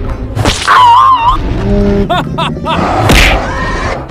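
Cartoon sound effects: a whoosh, a wobbling warble, a quick run of about five springy chirps a little after two seconds, then another whoosh about three seconds in.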